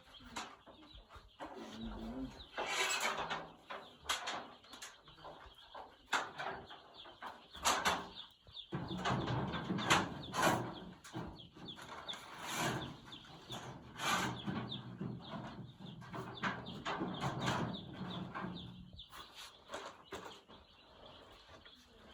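Day-old broiler chicks cheeping, with scattered clicks and knocks throughout.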